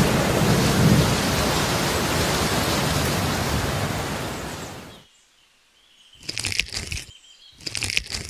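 Heavy rain pouring with a low rumble, fading out about five seconds in. After a pause, two short crackly bursts of another sound come near the end.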